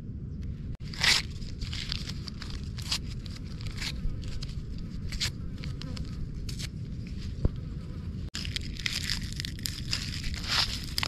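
Wood fire crackling and popping with irregular sharp snaps, freshly lit and taking well; the snaps come thicker near the end. A steady low rumble runs underneath.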